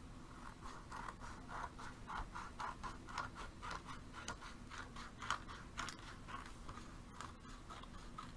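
Small scissors snipping through paper in a quick run of short cuts, several a second, thinning out after about six seconds.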